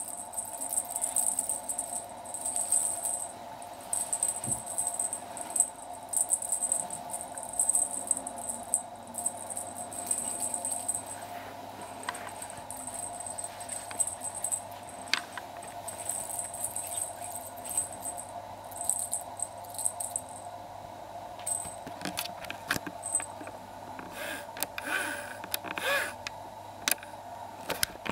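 Light jingling and rustling of a feather wand toy being jiggled for kittens, in repeated short bursts over a steady hum, with a few sharp ticks near the end.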